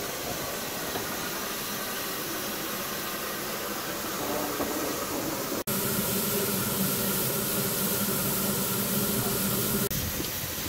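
Steady steam hiss from a standing 1950 Hunslet-built J94 0-6-0 saddle tank steam locomotive. The sound breaks off abruptly about halfway through and again near the end; after the first break the hiss is a little louder, with a steady hum in it.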